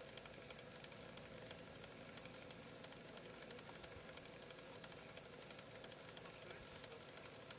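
Near silence: faint hiss with scattered small clicks.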